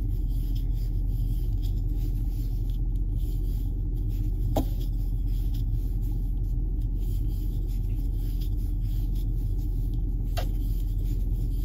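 Steady low background hum with no speech, broken by two faint ticks about six seconds apart.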